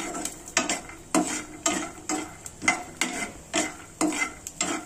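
Metal spoon stirring and scraping peanuts frying in oil in a non-stick frying pan, with about two scrapes a second over a light sizzle.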